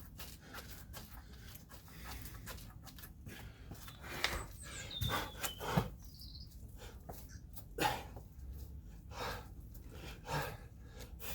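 A man panting hard while doing burpees, with short irregular thuds of hands and feet landing on the floor.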